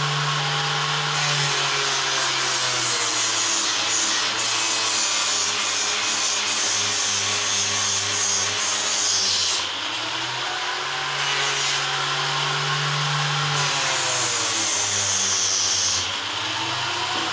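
Electric power tool working wood: a continuous motor hum with the noise of cutting or abrading, its pitch sagging and recovering several times as the tool is loaded. The sound changes abruptly about ten seconds in and again near the end.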